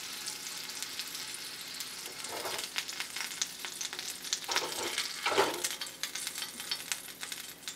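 Mini Chinese sausages (lạp xưởng) frying in oil in a small pan, a steady sizzle full of fine crackles. A few louder bumps come around the middle as chopsticks lift the sausages out onto a plate.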